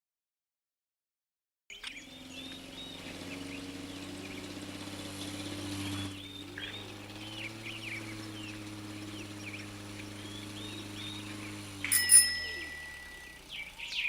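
Birds chirping over a low steady hum, starting after a second or two of silence. About 12 seconds in comes a sharp click, the loudest sound, followed by a brief held tone.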